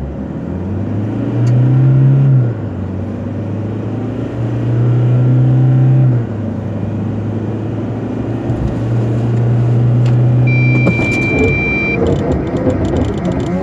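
Toyota Hilux 2.4 automatic's turbodiesel engine at full throttle, heard from inside the cab, its note rising and then dropping back at two upshifts. About ten and a half seconds in, a steady electronic buzzer sounds for about a second and a half as the signal to brake, and the engine note falls away as the truck brakes hard.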